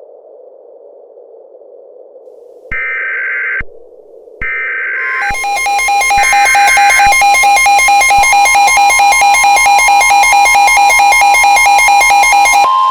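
Simulated Emergency Alert System activation: two short bursts of screechy digital header data, then a loud, evenly pulsing alert tone about five seconds in that cuts off near the end, sounding ahead of a severe thunderstorm warning.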